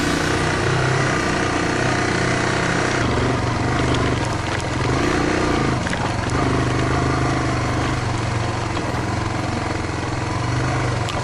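Yamaha Serow's single-cylinder four-stroke engine running while ridden, with the revs dropping and picking up again a couple of times around the middle.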